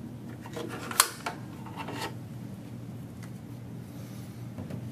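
Zebra ZXP3 card printer being handled as its media is taken out: a sharp plastic click about a second in, then a few lighter clicks and rubs, over a steady low hum.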